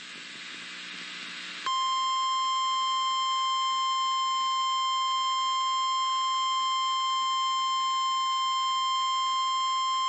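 NOAA Weather Radio warning alarm tone: a single steady high tone (about 1050 Hz) starting about two seconds in and holding unchanged, announcing a severe thunderstorm warning. Before it comes a short stretch of faint radio hiss.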